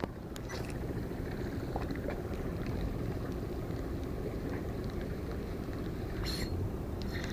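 Steady low outdoor rumble of wind on the microphone by open water, with a few faint clicks early on and a short hiss about six seconds in.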